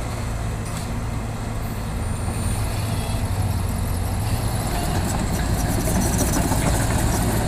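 Heavy diesel engine of an excavator or dump truck running steadily with a deep low hum, growing a little louder about halfway through.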